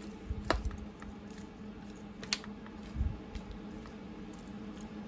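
Metal kitchen tongs clicking and tapping against a disposable aluminium foil pan as chicken wings are pushed and turned in it, with soft squishes of the meat and a few sharp clicks. A low steady hum sits underneath.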